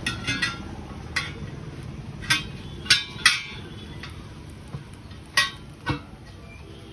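Irregular sharp metal clinks and knocks, about eight in all, over a low steady rumble: hand tools striking a wheel rim while a tyre is worked off by hand.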